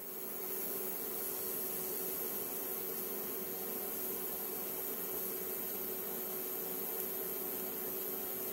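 TIG welding arc burning steadily on a steel gearbox gear and shaft: an even hiss with a steady hum, a little louder from just after the start.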